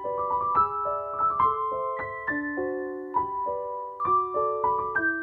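Background piano music: single notes and chords struck a few times a second, each ringing on and fading.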